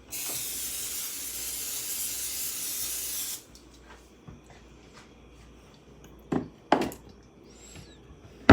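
Aerosol cooking spray hissing onto a pan in one burst of about three and a half seconds, starting and stopping sharply, followed by a few short knocks of cookware.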